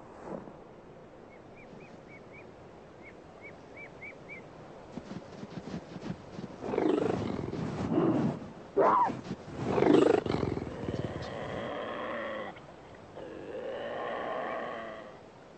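Cougar and lynx fighting: a run of loud, harsh cries about halfway through, the loudest near two-thirds of the way in, then two long, wavering, drawn-out yowls near the end.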